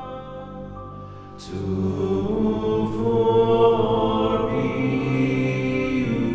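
Slow background music of long held tones, softer for the first second and a half, then swelling louder, with two brief high swishes.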